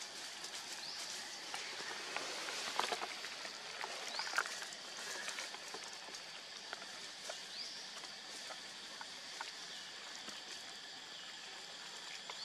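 Outdoor ambience: a steady high hiss with a few short rising chirps and scattered light clicks and rustles.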